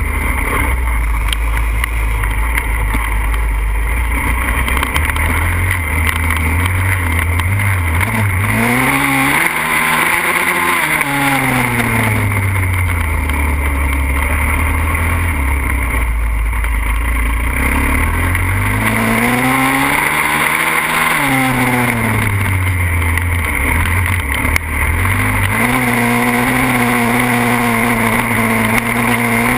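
Pitster Pro 140cc pit bike's single-cylinder four-stroke engine running under throttle, heard close up from the bike. It revs up and back down twice in long swells, about ten and twenty seconds in, and holds a higher steady pitch near the end.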